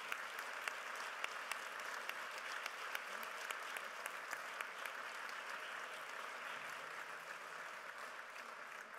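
Audience applauding: many hands clapping steadily, then slowly dying down near the end.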